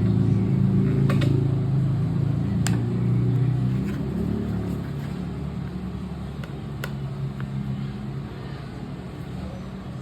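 A vehicle engine running, loudest at first and fading over the last several seconds, with a few sharp clicks.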